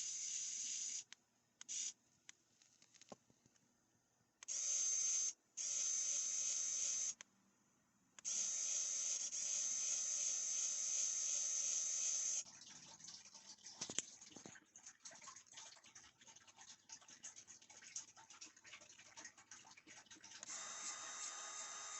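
Kaiweets ES20 electric precision screwdriver's small motor running unloaded in several bursts, a steady high-pitched whine that starts and stops. In between there are scattered faint clicks, and near the end it runs again more quietly.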